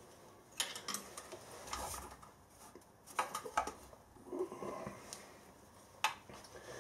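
Irregular small clicks, taps and light knocks of hands handling a milling machine's one-shot lube oil pump: its plastic reservoir bowl, pump body and oil line fittings. A sharper click comes near the end.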